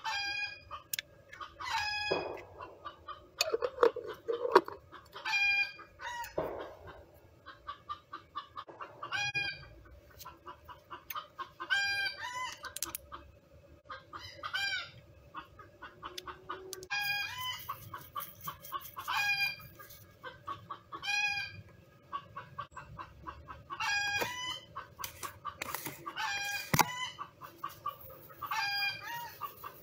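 Several chickens clucking and calling over one another, one short call every second or two, with a few sharp clicks mixed in.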